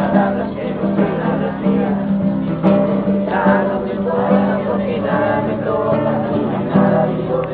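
Several voices singing together to a strummed acoustic guitar.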